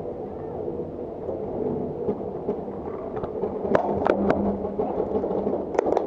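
Paintball markers firing: a few sharp, irregular pops starting about four seconds in, over a steady low rumble.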